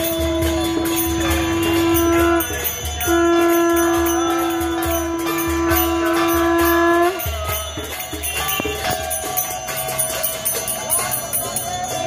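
Devotional kirtan: brass kartal hand cymbals jingling with a khol drum beating and a long, steady held tone, broken once briefly. About seven seconds in the drum and the held tone stop, and the cymbals carry on alone.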